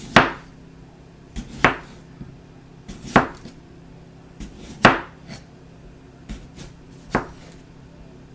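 Knife slicing a raw potato thin on a cutting board: five sharp knocks as the blade goes through and hits the board, about one every second and a half.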